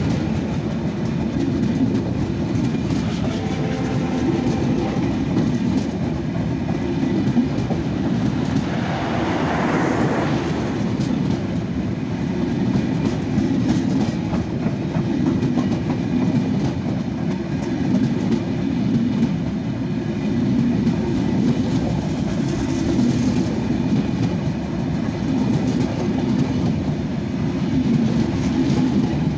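Passenger coaches of the Panchagarh Express passing close by at speed. A steady rumble with the clickety-clack of wheels running over the rail joints.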